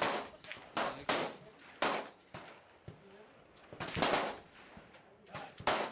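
Rifle shots from shooters along a firing line: about six loud sharp reports at uneven intervals, a few quick pairs and longer gaps, with fainter shots between.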